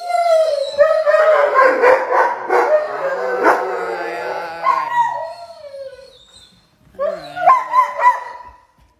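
Several German Shepherds howling and whining together in overlapping, pitch-bending cries, excited at the word 'swimming'. The chorus fades out about two-thirds of the way through, then flares up again in a short loud burst near the end.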